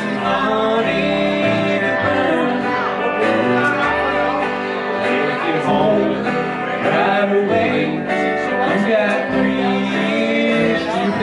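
Small country band playing live: electric guitar, upright double bass and a second guitar, with a man's voice in the mix.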